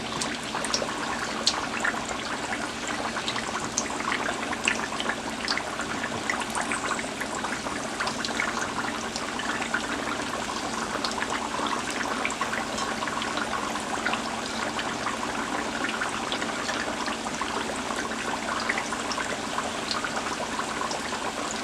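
Sweet potato fries deep-frying in hot oil on medium-high heat: a steady sizzle with many small pops and crackles.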